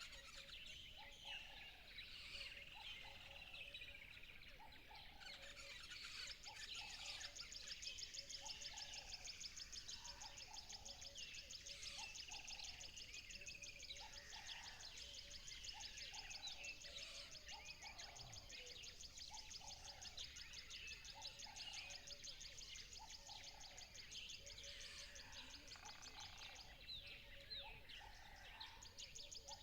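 A chorus of wild birds chirping and singing, many overlapping short calls and glides. A fast, high trill runs through most of it, dropping out briefly near the end, and a low short note repeats about once a second underneath.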